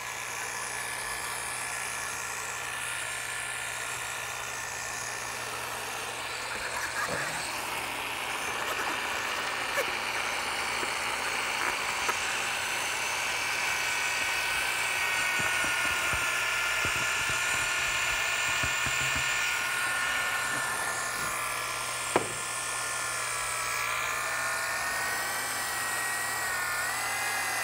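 Handheld electric paddle mixer running steadily in a bucket, blending self-leveling epoxy resin and hardener with powdered filler. Its motor whine drops slightly in pitch about halfway through as the filler goes in, then wavers near the end, with a few light ticks along the way.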